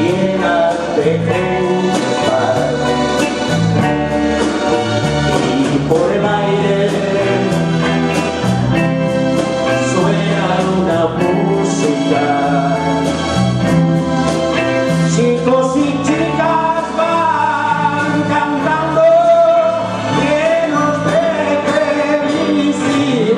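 Live band playing a Spanish pop song, with singing over electric guitar, bass guitar, drums and keyboards.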